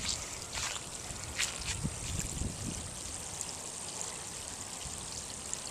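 Floodwater running steadily toward a street storm drain: a continuous sound of trickling, flowing water.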